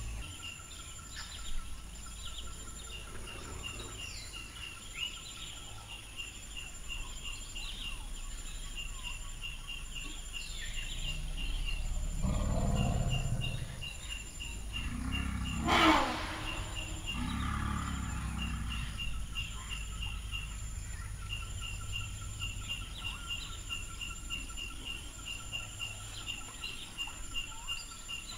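Low rumbles from African forest elephants, about twelve seconds in and again a few seconds later, with a short, sharp loud sound between them. Insects keep up a fast, even chirping throughout.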